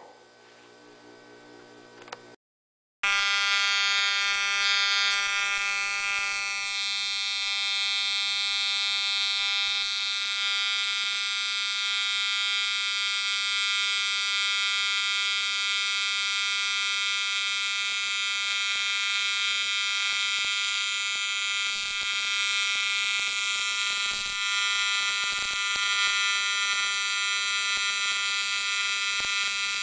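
AC TIG welding arc on aluminum, a loud, steady electric buzz that starts abruptly about three seconds in, after a moment of quiet.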